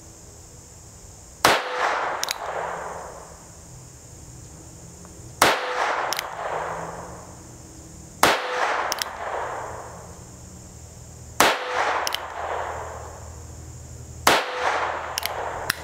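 Five shots from a North American Arms 22S mini revolver firing .22 Short rounds, one every three to four seconds. Each is a sharp crack followed by an echo that dies away over about a second.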